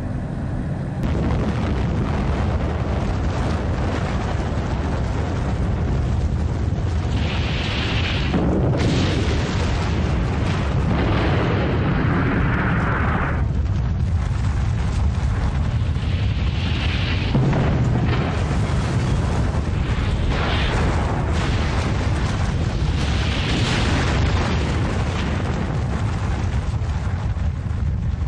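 Atomic bomb blast rendered as a film sound effect: a continuous deep rumble, with several rushing swells rising and falling over it.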